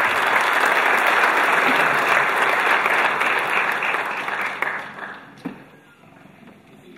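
Large seated audience applauding, the clapping dying away about five seconds in.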